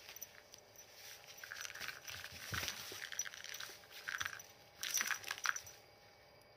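A cat scrabbling at a toy mouse on the mesh floor of a fabric pop-up pen: rustling and scratching of fabric with small clicks. It comes in uneven bursts, loudest about five seconds in.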